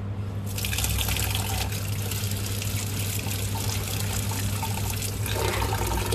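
Tap water running into a steel bowl of black masoor lentils as they are washed by hand, a steady splashing hiss that starts about half a second in.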